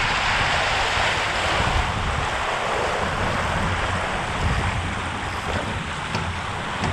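Water rushing and spraying along the hull of an RS K6 sailboat as it heels and sails fast, with wind buffeting the microphone. The hiss of the spray is loudest in the first couple of seconds, then eases a little.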